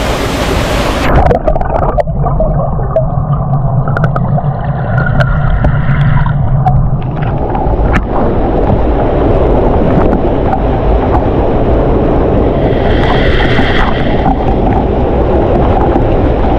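A waterfall's falling water heard as the recording goes underwater: about a second in, the bright hiss of the falls cuts off abruptly and gives way to a muffled, low churning of water.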